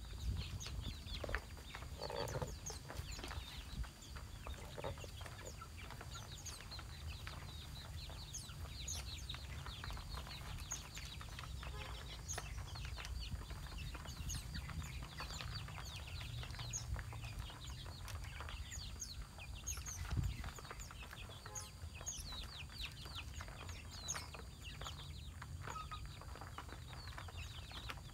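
Chickens clucking among many quick, high chirps from small birds, over a steady low rumble.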